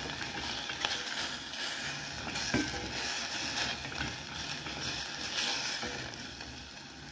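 Beef sizzling in a pan as its cooking liquid dries off, with a few light clicks of a stirring spoon against the pan. The sizzle grows fainter near the end.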